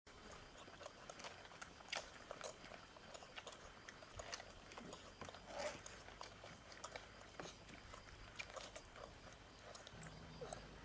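Four-and-a-half-week-old Doberman puppies suckling from their mother: soft, irregular smacking and clicking of nursing mouths.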